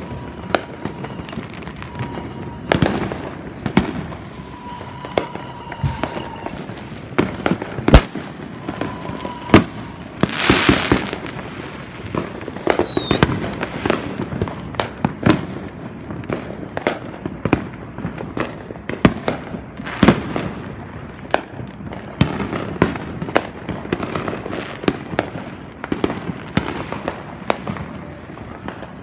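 Fireworks and firecrackers going off many times in quick succession, sharp bangs and crackles overlapping, the loudest bang about eight seconds in. About ten seconds in comes a hissing burst, followed by a short falling whistle.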